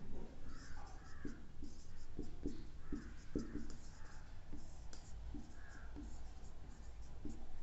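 Marker pen writing on a whiteboard: a run of short scratchy strokes and light taps as letters are written.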